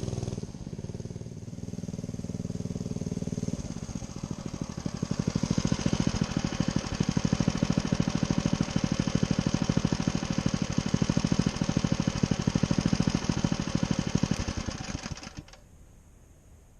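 MM212 mini bike's small single-cylinder four-stroke engine running with a fast, even pulse. It grows louder about four seconds in, holds steady, then fades out near the end.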